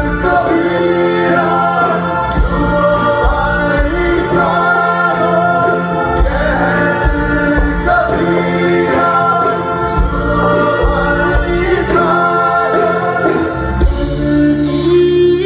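Live folk-rock band playing a song: a man singing lead over acoustic guitar, bass guitar and a drum kit keeping a steady beat.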